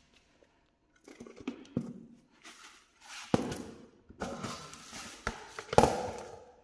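Handling noise from plastic basins of Sichuan peppercorns being moved and tilted: a few sharp knocks mixed with short rustles, the loudest knock near the end.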